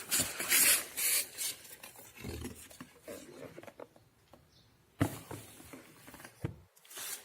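Rustling and rubbing of packaging as a baitcasting reel is taken out and unwrapped, loudest in the first second and a half, with a sharp click about five seconds in.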